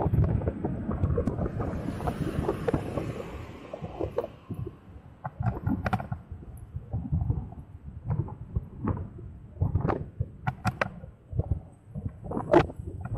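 Rumble and wind noise on a 360 camera mounted on a moving electric scooter, with irregular knocks and rattles from the ride over the street. Heavier rumble for the first few seconds, then mostly separate sharp knocks.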